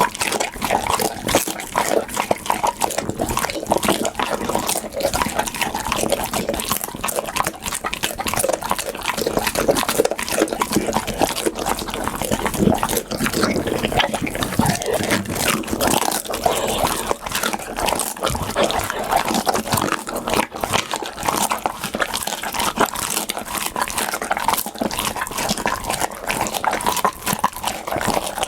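Pit bull eating: continuous chewing, smacking and mouth clicks in a dense, unbroken run.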